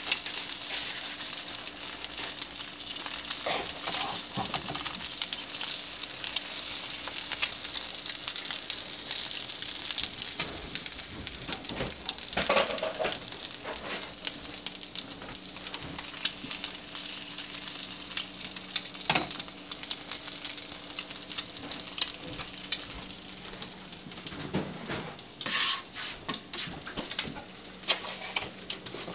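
Eggs frying in hot bacon grease in a pan: a steady sizzle with fine crackling pops. A few brief knocks come in between, and the sizzle grows fainter near the end.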